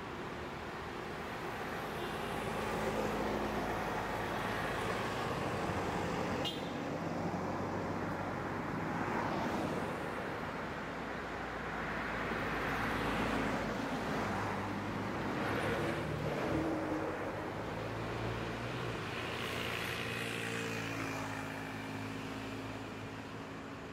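Road traffic: car and van engines running as vehicles pass slowly and wait close by, the noise swelling and fading several times, with one sharp click about six and a half seconds in.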